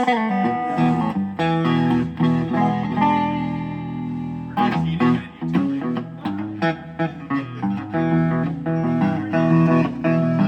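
PRS Silver Sky SE electric guitar played in a sound test: picked single notes and short chord phrases, with one chord left ringing for about two seconds near the middle.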